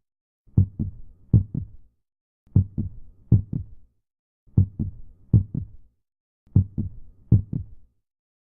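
Deep, heartbeat-like thumping: two double beats, then a pause with dead silence, the pattern repeating every two seconds, four times over.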